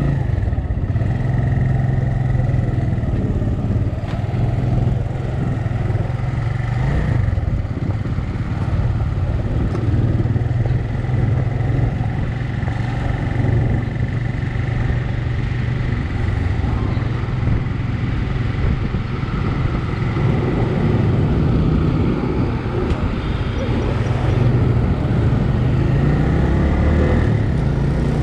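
A motor vehicle running steadily, a continuous low engine hum with a faint high whine above it.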